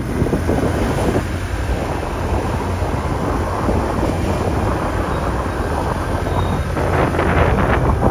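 Wind buffeting the camera microphone on a moving motor scooter, over a steady low rumble of the scooter's engine and road. The wind gets a little louder near the end.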